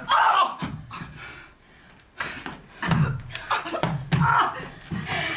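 Scuffle of a staged fist fight: short cries and grunts with heavy breathing, mixed with slaps and knocks of bodies and feet on a wooden floor. A brief lull comes about halfway through.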